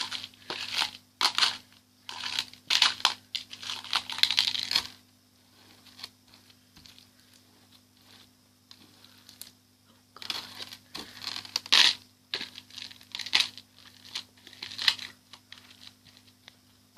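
Beaded slime being squeezed and stretched by hand, in irregular bursts of crinkly noise, with a quieter few seconds midway.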